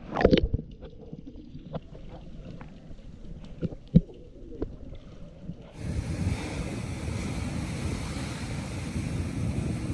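Stones knocking and clattering as waves roll them on a boulder beach, with the sharpest knocks just after the start and about four seconds in. About six seconds in the sound switches abruptly to a steady rush of surf and wind.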